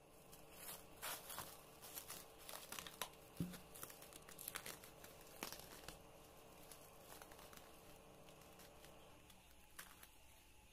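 Faint crinkling and crackling of plastic cling film being peeled off a glass bowl of risen dough, as a dense run of small crackles that thins out after about six seconds to a few soft clicks.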